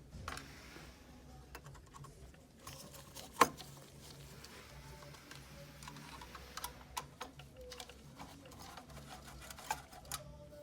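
Scattered light clicks and taps of a screwdriver and small screws as screws are taken out of a Cadillac CUE infotainment unit, with one sharp click about three and a half seconds in.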